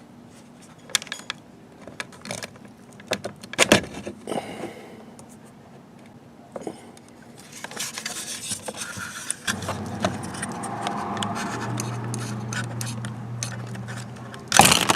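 Scattered plastic clicks, scrapes and rattles as a Toyota Prius door armrest is handled and its wire-harness connector clips are pushed and pulled apart by hand, with one loud snap near the end. A low steady hum comes in about two-thirds of the way through.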